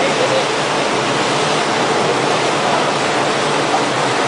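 Steady rush of churning sea water along a moving ship's side, where a rescue boat hanging from its davit is dragged through the foaming wash.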